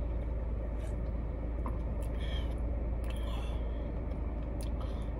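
Steady low hum inside a parked car's cabin, with two faint short sounds about two and three seconds in.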